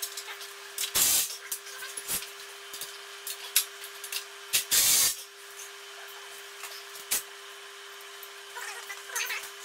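Intermittent knocks and clatter of gym equipment assembly work, with two short, loud noisy bursts about a second in and about five seconds in, over a faint steady hum.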